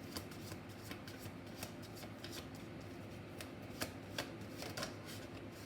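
Tarot deck being shuffled by hand: a run of irregular, crisp card clicks and flicks.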